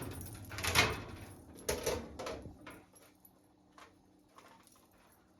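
Baking pans knocking and clattering as they are handled after the cake is flipped: a few sharp knocks in the first two and a half seconds, then only faint clicks.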